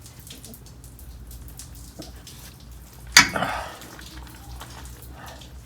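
Mini breaker bar and 15 mm socket being worked on an oil drain plug: one sharp clank with a short rattle about three seconds in, over faint small clicks.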